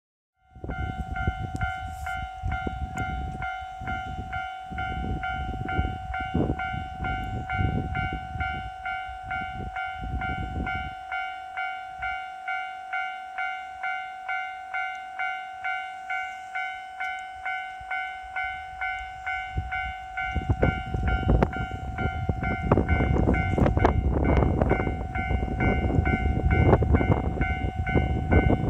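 Japanese level-crossing alarm ringing steadily throughout, a repeating electronic ding about one and a half to two times a second. About twenty seconds in, the Hanayome Noren limited express, a diesel railcar train, arrives and passes the crossing with a loud rumble and clatter of wheels.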